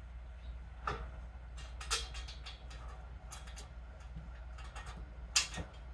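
Metal box-spring frame parts and hardware being fitted together by hand: a scattering of light clicks and clinks, loudest shortly before the end.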